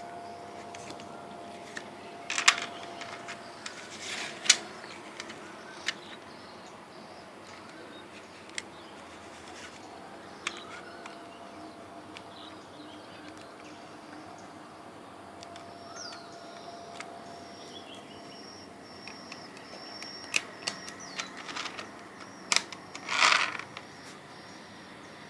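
Scattered sharp clicks and short rustles of something being handled, with a faint steady hum in the background.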